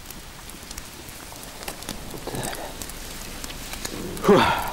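Campfire crackling, with scattered small pops. A short vocal sound near the end is the loudest thing.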